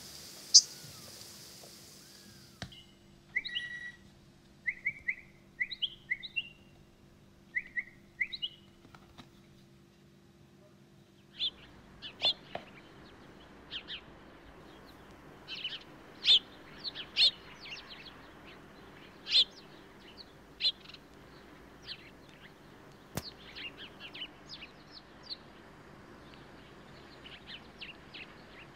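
Small birds chirping: a run of short rising chirps, then from about eleven seconds in a denser, livelier chorus of sharp chirps and tweets over a faint steady hum. A single sharp click comes just after the start.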